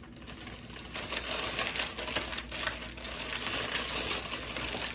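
Parchment paper crinkling and rustling in irregular crackles as a sandwich is folded and wrapped up in it, picking up about a second in.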